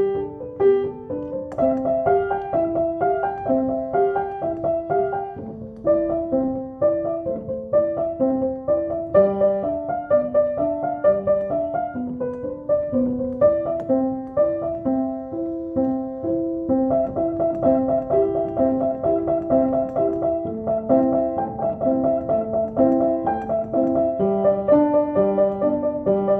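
Piano-like keyboard music: a steady stream of quick separate notes in a repeating figure, growing denser partway through.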